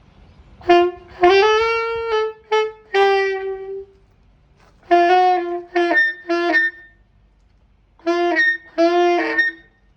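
A brand-new saxophone being played in three short phrases of held notes with pauses between them, a first try-out with its neck not yet properly fitted.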